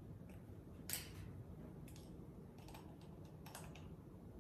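A few faint, irregular clicks and taps of a measuring spoon against a small spice jar as pumpkin pie spice is scooped out, the clearest about a second in.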